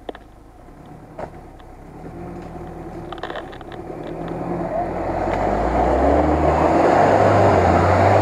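Off-road 4x4 SUV engine revving harder as the vehicle pulls out of a muddy rut and drives past, tyres churning and throwing mud; it grows from faint to loud over the last few seconds. Two sharp knocks about a second apart near the start.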